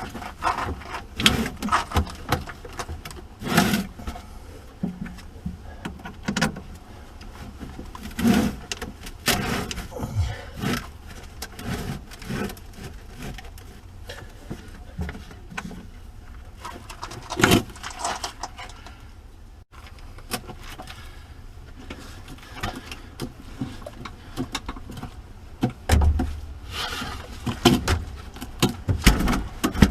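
Irregular knocks, clinks and scrapes of hands-on work installing motorhome coach batteries: heavy batteries, cables and hand tools being handled in the battery bay.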